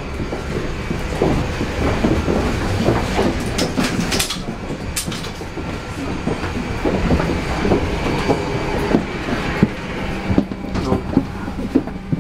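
Footsteps and irregular clattering knocks of people walking along a jet bridge to board an airliner, over a steady rumble. A low steady hum joins about two-thirds of the way through.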